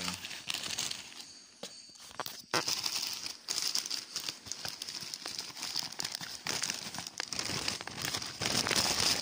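Plastic bag and plastic packaging crinkling and rustling as hands rummage through it. The sound is continuous with a brief lull about two seconds in and is loudest near the end.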